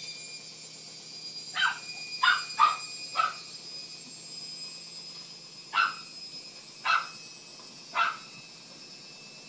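A dog barking: seven short barks, four close together in the first few seconds, then three more about a second apart.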